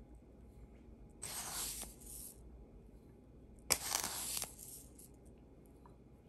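Granulated sugar scooped with a plastic teaspoon from a clear plastic cup and tipped into a beaker of water: two short grainy rushes, about a second in and about four seconds in, the second starting with a sharp click.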